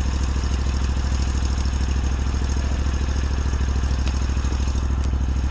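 Six-wheeled Argo amphibious ATV's engine idling steadily, a low, even pulsing.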